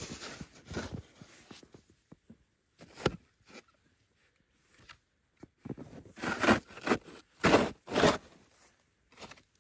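A metal shovel scooping and scraping snow and slush into a hole in the ice: a series of crunching strokes, scattered at first and loudest as several scoops follow one another about two-thirds of the way through.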